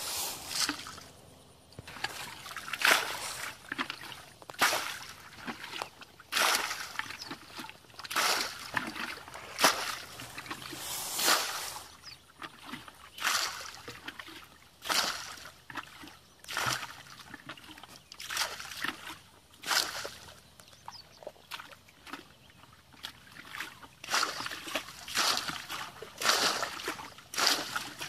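Muddy water being bailed out of a shallow ditch with a bucket: each scoop is flung out in a splash, about one every one and a half to two seconds.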